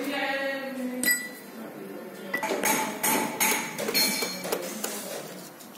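Hand tools clinking against the metal of a Tata Ace Mega engine as it is being unbolted: a string of sharp metallic clinks, irregular and several about half a second apart.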